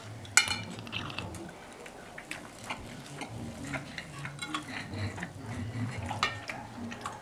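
Metal knife and fork clinking and scraping against a plate while cutting food, with a sharp clink about half a second in and scattered lighter taps and scrapes after it.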